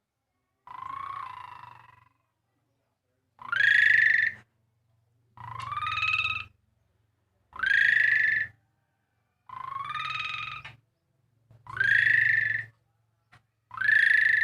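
Asian pied starling (jalak suren) giving a harsh, buzzy call over and over, about every two seconds, each call about a second long and rising in pitch before holding. The call is the one likened to a motorcycle's electric starter.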